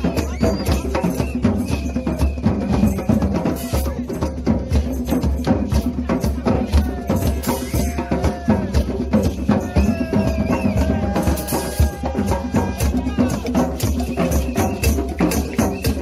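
A street drum circle: many hand drums such as djembes, with a snare drum played with sticks, beating a dense, driving rhythm. Crowd voices talk and call over the drumming, most around the middle.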